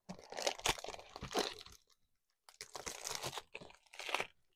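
Plastic wrapping crinkling and rustling as a small fountain-pen box is handled and unwrapped, in two stretches with a short pause between.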